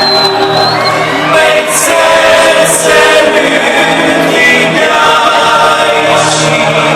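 Pop song played loudly over a concert PA at a sound-check rehearsal, with sung vocals over an electronic backing track.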